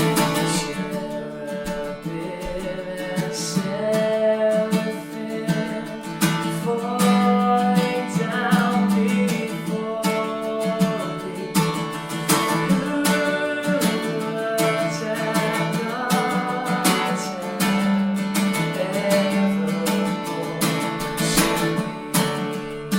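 A worship song sung to a strummed acoustic guitar, the voice holding long notes with vibrato.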